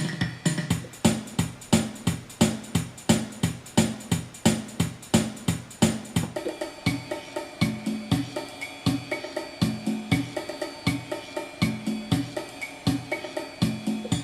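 Yamaha PSR-350 keyboard's built-in accompaniment playing a ballroom-category style: a steady drum-kit pattern with snare, hi-hat and cymbal over bass notes. About six and a half seconds in the pattern changes and held chords join in.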